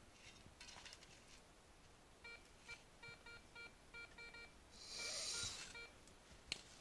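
Metal detector beeping: a string of short, faint, same-pitched tones in quick irregular groups from about two seconds in, the signal of metal under the search coil. A short rustling hiss about five seconds in is the loudest sound.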